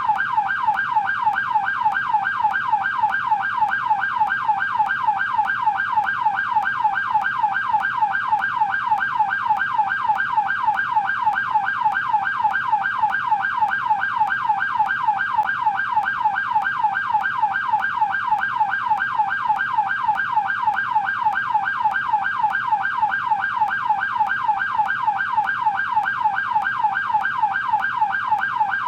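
American police car electronic siren in yelp mode: a rapid, evenly repeating rising-and-falling wail, sounding continuously.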